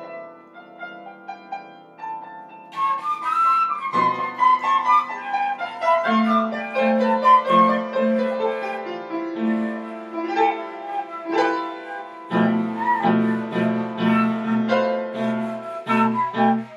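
Concert flute and upright piano playing together: a flute melody over piano chords, fuller from about three seconds in, with the piano striking short repeated chords near the end.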